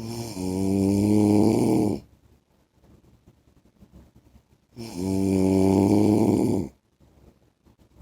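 A man snoring: two loud snores about five seconds apart, each lasting about two seconds and carrying a clear pitch.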